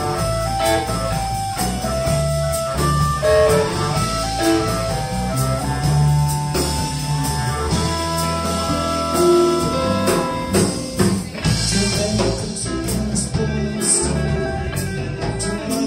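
Live electric blues band playing: a blues harmonica plays long held, wailing phrases over electric guitars, bass guitar and a drum kit. The held harmonica notes fall away near the end, leaving the guitars and busier drums and cymbals.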